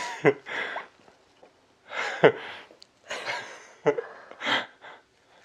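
Soft, breathy laughter in about four short bursts, with quiet gaps between them.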